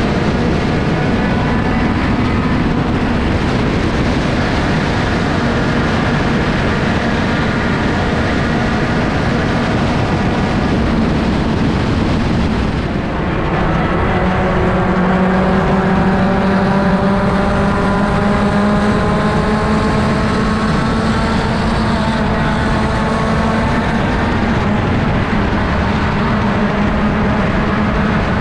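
Sport compact race car's engine running hard at racing speed, heard on board the car. After a brief dip about 13 seconds in, its note rises steadily for several seconds as the car accelerates.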